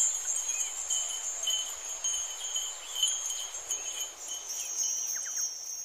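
Soft, high, shimmering chimes with fine clicking, over a fainter pulsing trill. The sound starts to fade near the end.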